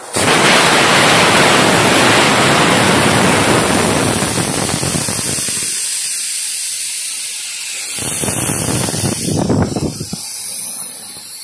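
Compressed air hissing through a car tyre's valve stem. A loud steady hiss starts suddenly, thins to a quieter, higher hiss after about six seconds, and swells briefly again near the end.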